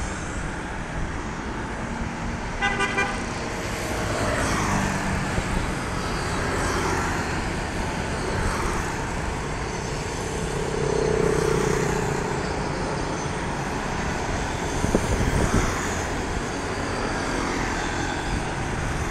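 Street traffic on a wide road: motor scooters and cars pass steadily. A vehicle horn gives a quick series of short beeps about three seconds in.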